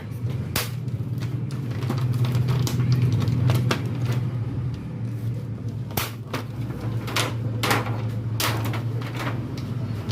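Scattered clicks, crackles and rustles of hands handling the opened TV panel's parts, over a steady low hum.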